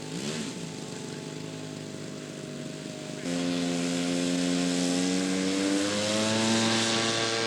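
Engine of a large radio-control model airplane running, its pitch wavering at first. About three seconds in it suddenly becomes louder, and its pitch then climbs steadily to the end.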